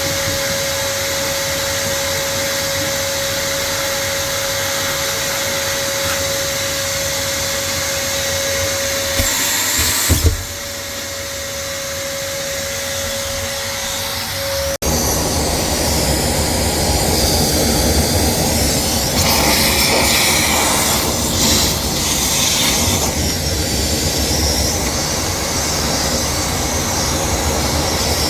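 Wet vacuum running with a steady rushing noise and a held whine, sucking standing water out of a washing machine through its emergency drain hose. A few knocks come about ten seconds in; after an abrupt break midway the rush turns lower and rougher for the rest of the time.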